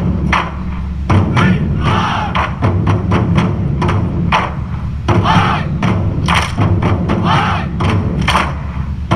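Background music with a heavy, steady thumping beat and recurring chant-like vocal shouts.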